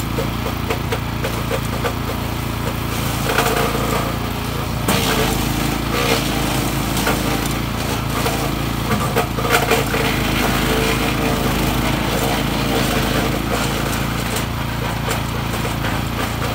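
PRO-14HP wood chipper's 14 hp engine running steadily, with crackling and snapping of branches being chipped, thickest through the middle of the stretch.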